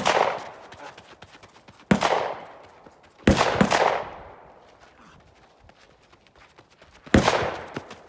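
Pistol shots fired one at a time in slow, deliberate fire, about five in all at uneven intervals, each followed by a fading echo.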